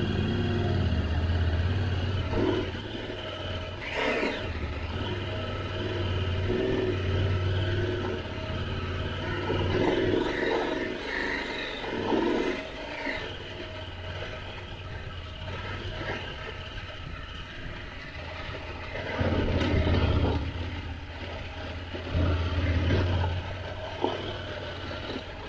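Adventure motorcycle engine pulling uphill, its revs swelling and easing with the throttle several times, over the crunch and scrape of loose gravel under the tyres. A few sharp knocks, the clearest about four seconds in.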